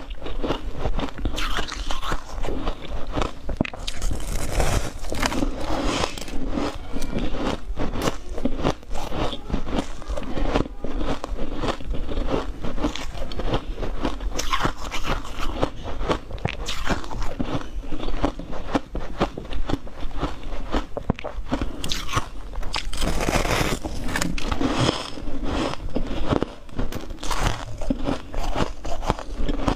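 A person biting and chewing a big chunk of refrozen freezer frost ice: continuous dense crunching and crackling.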